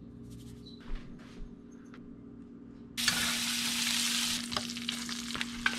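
Butter sizzling as it melts in a hot stainless steel frying pan, starting abruptly about three seconds in after a quieter stretch with a few faint handling sounds.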